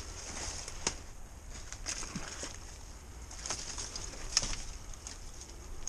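Rustling and crackling of a camouflage pop-up hunting blind's fabric and of dry leaf litter while the blind is being taken down, with a few sharper clicks, the loudest about four seconds in.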